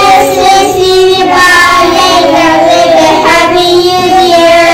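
Several young children singing together in unison, holding long drawn-out notes.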